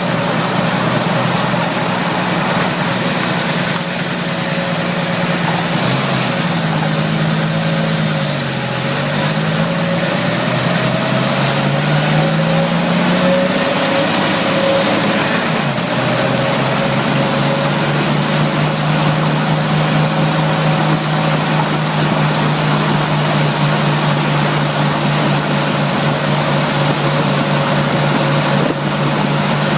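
Jeep Wrangler YJ engine running, heard from behind the dash. Its pitch drops and rises again between about 6 and 16 seconds in, then holds steady, with a steady high tone throughout. This is the mystery noise the owner traces to somewhere under the dash.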